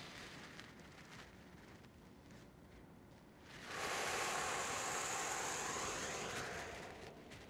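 A person blowing out one long, forceful exhale, a breathy hiss that starts about halfway through and lasts about three seconds, emptying the lungs at the end of a deep-breathing stretch.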